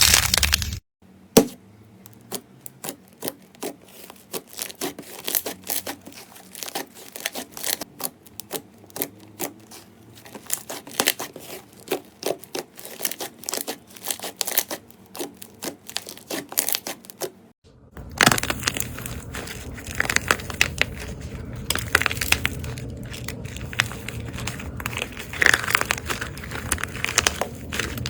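Slime being pressed and squeezed by hand, giving many sharp, irregular crackling pops and clicks. About two-thirds of the way through it cuts to another clip with denser, steadier crinkling and crackling.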